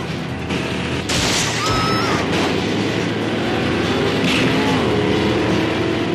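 Car-chase soundtrack: car engines running hard at speed, with a sudden burst of noise about a second in, after which it stays louder.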